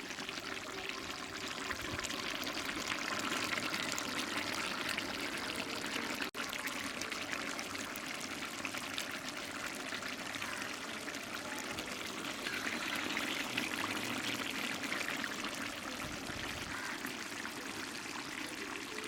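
Thick beef trotter curry bubbling steadily in the pot as its gravy cooks down, with a brief break about six seconds in.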